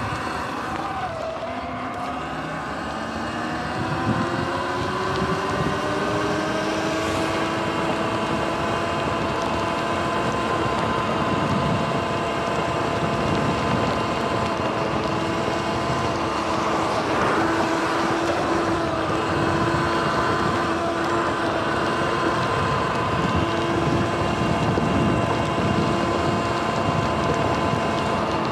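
Sur-Ron Light Bee electric dirt bike's motor and drivetrain whining, rising in pitch as the bike speeds up over the first few seconds and then holding a steady pitch. Tyre hiss on wet pavement and wind on the microphone run underneath.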